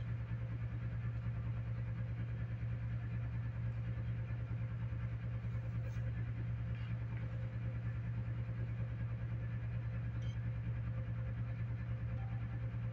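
A steady low hum that does not change, with a couple of faint ticks.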